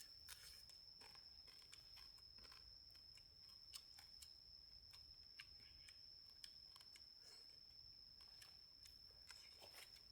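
Near silence: faint scattered clicks and ticks over a steady high-pitched whine.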